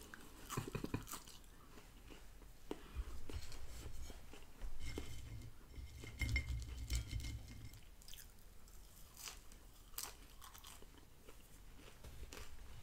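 A man chewing McDonald's french fries close to the microphone, with irregular crisp clicks and soft low thumps of chewing that are busiest in the middle.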